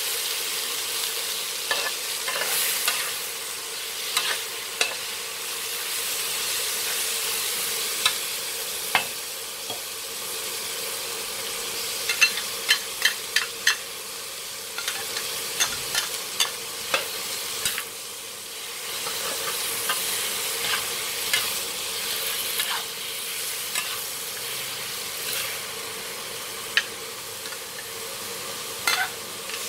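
Chicken pieces sizzling in hot oil in a wok, with a metal spatula scraping and clinking against the wok as they are stirred. The clinks come in a quick run about twelve to fourteen seconds in.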